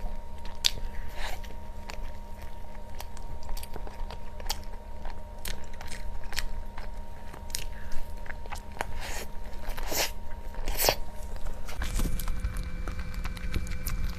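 A person eating crunchy food close to the microphone: crisp bites and chewing, with many irregular sharp crunches.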